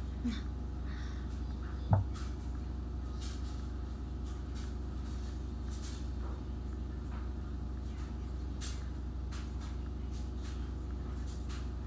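Steady low background hum, with faint scattered soft ticks and one sharp knock about two seconds in.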